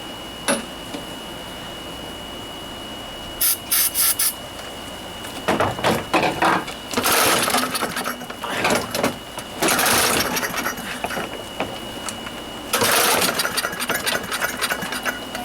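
Craftsman push lawnmower's small engine being pull-started with the recoil starter, several pulls in a row; the engine coughs on the pulls but does not catch and keep running.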